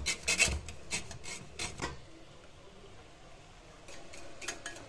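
Wire balloon whisk scraping and clicking against a glass bowl as egg yolks are beaten into a thickening salted zabaglione. The strokes come quickly, about four a second, for roughly two seconds, then turn much fainter, with a few light strokes again near the end.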